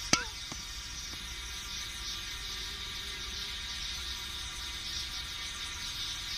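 A single sharp metallic ping just after the start, ringing briefly and dropping in pitch, then one or two fainter ticks: the beer can flexing as it heats and builds pressure over the propane burner. Under it is a steady hiss of the burner flame.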